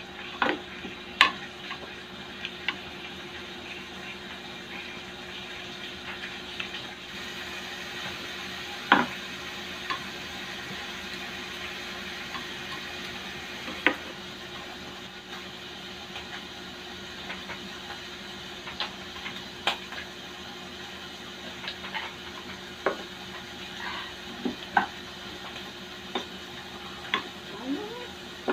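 Hotdog and pork slices sizzling steadily on a grill. Metal tongs click sharply against the grill a dozen or so times as the pieces are turned.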